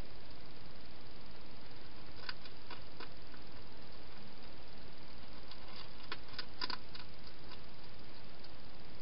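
Wild hedgehog eating from a bowl, giving a few small sharp clicks and crunches in two clusters, about two seconds in and again around six to seven seconds in, over the steady hiss of the camera's microphone.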